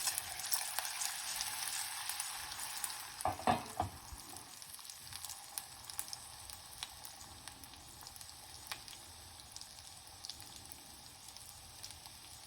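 Grated ginger and raw peppercorns sizzling in hot ghee, a steady hiss with scattered crackles that dies down after about four seconds. A short clatter about three and a half seconds in.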